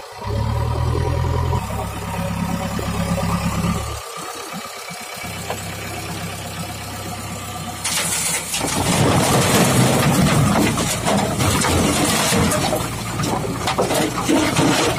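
Diesel engines running steadily as a JCB 3DX backhoe loader works beside a tractor. About eight seconds in, the loader bucket tips its load of rocks and soil into a steel tractor trolley, a loud rattling clatter of stones hitting the metal bed that goes on to the end.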